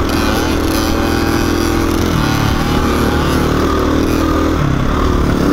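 Dirt bike engine running steadily under way, its revs rising and falling a little with the throttle.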